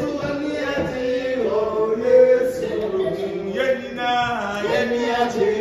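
A song with male voices singing a repeated, chant-like refrain, with long held notes.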